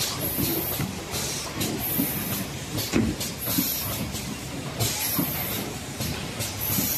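Carton overwrapping machine and its conveyor running: continuous mechanical clatter, with a short high hiss repeating about every one and a half seconds as the machine cycles.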